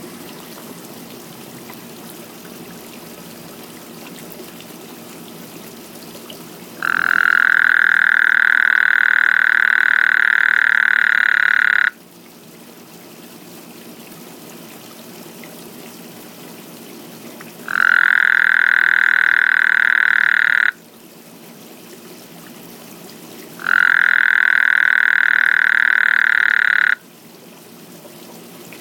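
A frog calling three times, each a long, steady, high call lasting three to five seconds, the first and longest about a quarter of the way in.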